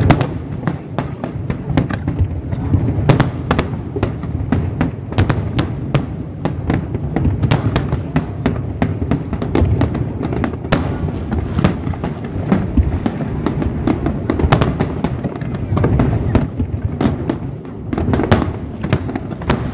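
Fireworks display: aerial shells bursting in a continuous barrage, a steady low rumble of booms with many sharp cracks and pops throughout.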